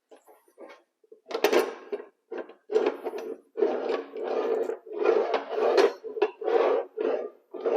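Unboxing handling noise: the chop saw's box and its packing being pulled, shifted and set down in a run of irregular scrapes, rustles and knocks, with short gaps between them.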